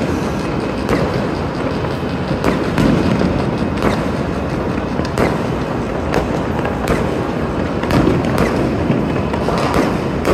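Many fireworks and firecrackers going off at once: a continuous rumble of crackling bangs, with sharper reports standing out about once a second.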